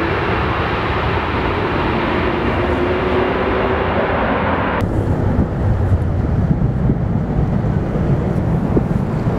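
Twin-engine jet airliner on its landing roll on a wet runway: a steady roar of engines and spray with a faint engine hum. About five seconds in it cuts off abruptly to a gusty low rumble of wind on the microphone.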